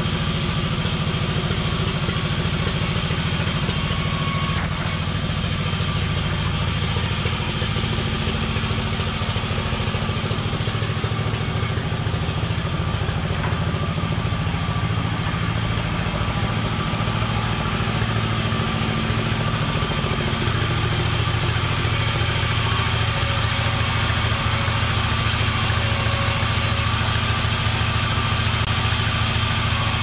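An engine running steadily at a sawmill, its note shifting slightly about twenty seconds in.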